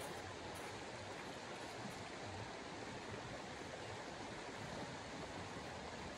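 Steady, even outdoor rushing hiss with no distinct events, like distant traffic or running water heard as one wash of noise.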